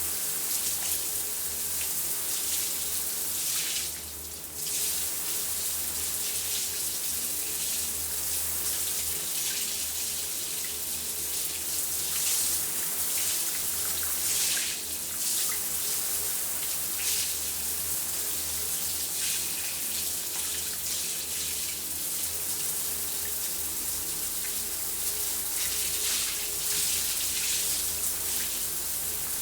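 Shower running: a steady spray of water falling, with a brief dip about four seconds in.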